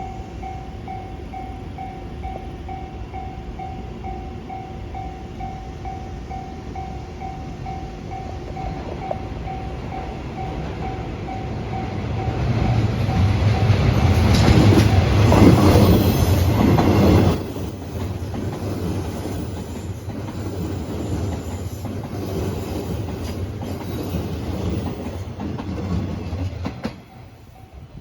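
A Japanese level-crossing warning bell dings about twice a second, steady and repeating. A 201 series electric multiple-unit train then approaches and passes over the crossing. Its wheels clatter on the rails, loudest about halfway through, before the noise drops sharply and fades away near the end.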